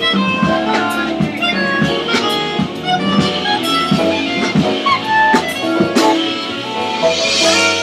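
Live jazz band playing: piano and bass under a melodic lead line, with drum strokes throughout and a cymbal wash swelling near the end.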